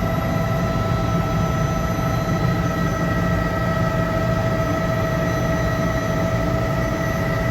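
Helicopter in flight: a steady low rumble with a constant high whine over it.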